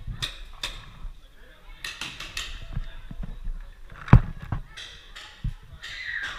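Paintball markers firing in scattered sharp pops: a quick cluster about two seconds in and the loudest shot about four seconds in, with faint voices between.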